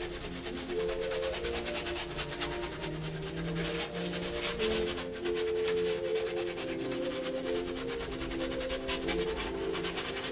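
A paintbrush scrubbing paint rapidly back and forth on a canvas, a quick rhythmic rasping. Slow music of long held notes plays underneath.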